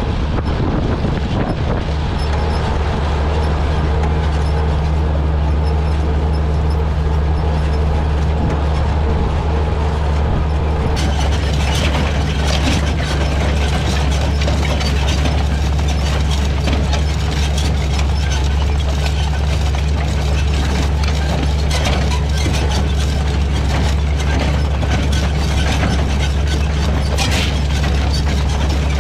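Oliver Super 77 tractor's six-cylinder engine running steadily while pulling an International Harvester 56 corn planter. About eleven seconds in, the planter's drive mechanism comes in close, adding a rapid clicking and rattling over the engine.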